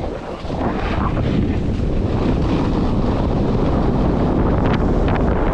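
Wind rushing over the microphone of a skier moving downhill, mixed with the steady hiss of skis sliding on groomed snow and a few sharper edge scrapes near the end.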